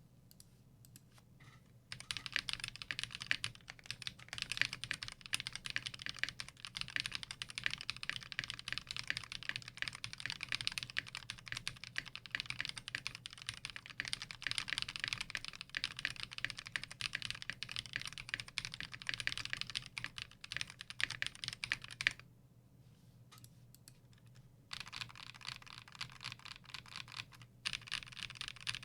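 Fast typing on a custom 65% mechanical keyboard: an acrylic Tofu65 case with a polycarbonate plate, lubed Akko CS Radiant Red linear switches and PBT keycaps. The typing is continuous, stops for a couple of seconds about two-thirds of the way through, then picks up again.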